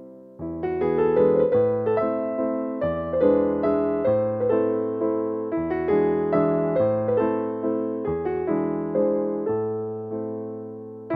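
Background music: gentle electric piano playing chords and a melody, each note struck and left to fade, the chords changing about every second or two.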